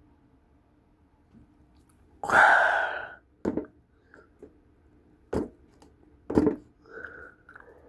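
A loud breathy exhale, like a sigh, about two seconds in. Then a few short sharp clicks and knocks, three or so spread over the next few seconds, from small parts and tools being handled.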